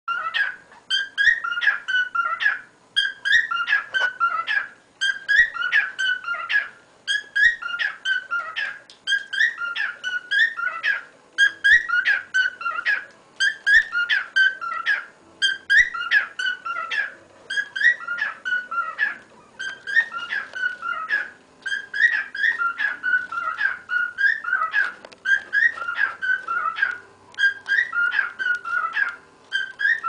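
Cockatiel singing: the same whistled phrase of quick notes repeated over and over, with short pauses every few seconds.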